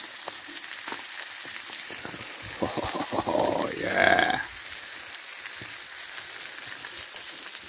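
Chicken wings, peppers and onions sizzling steadily in a pan over a wood-burning stove as rice goes in. About three to four seconds in there is a louder spell of stirring and scraping in the pan.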